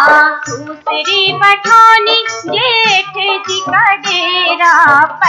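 Dehati folk song: a high-pitched singing voice with a wavering, trilling melody over a recurring drum beat.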